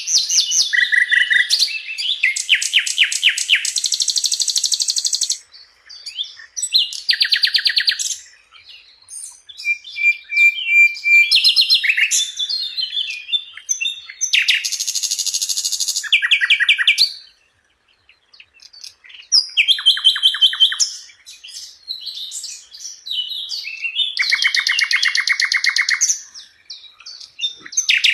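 Sikatan londo, a small flycatcher kept as a songbird, singing in full voice: phrases of rapid high trills and chirps a few seconds long, with brief pauses between them and a longer pause about two thirds of the way through.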